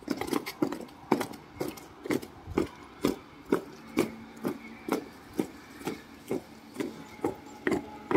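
Short, sharp knocks or stamps repeating evenly about twice a second, like a steady marching cadence.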